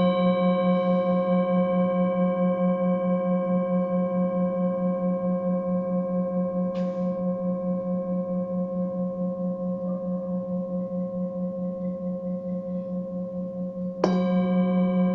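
A singing bowl rings on after a strike, with several steady overtones over a low hum that wavers rhythmically. It is lightly touched again about seven seconds in and struck afresh near the end.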